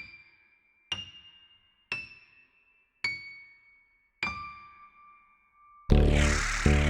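Five single struck notes about a second apart, each ringing at a different high pitch and fading away, like small bells or tapped glass. About a second before the end, loud electronic music with a heavy bass line and a noisy swell comes in suddenly.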